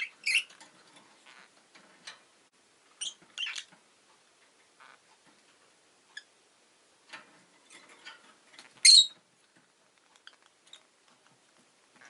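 Rosy-faced lovebird giving short, sharp, high chirps: one near the start, a pair about three seconds in, and the loudest a little before the end, with faint ticks between the calls.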